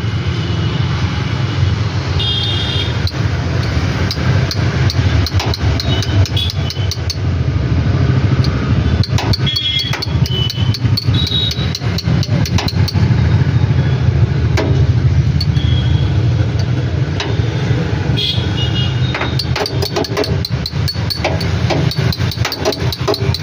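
Bajaj Maxima auto rickshaw engine running, a steady low drone with a dense, uneven clatter of clicks over it.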